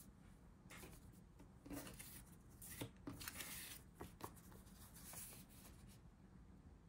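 Faint rustling of paper sticker sheets being picked up and shuffled over a planner, with a few soft taps as the sheets touch the pages.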